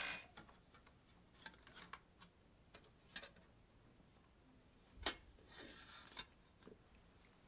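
Faint, scattered clicks and taps of an Ender 3 Pro's bottom cover and its screws being handled as the cover is taken off. There is a sharp metallic clink with a brief ring at the very start, and a short run of light rattles around five to six seconds in.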